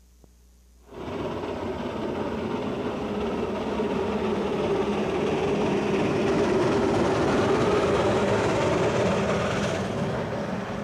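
After about a second of near silence, a narrow-gauge Shay geared steam locomotive runs close by. It makes a steady, dense sound of exhaust and running gear that grows louder and eases off slightly near the end.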